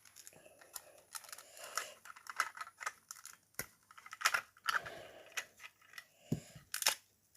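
Plastic Lego bricks clicking and rattling as they are handled, a run of irregular short clicks with a few sharper ones about four seconds in and near the end.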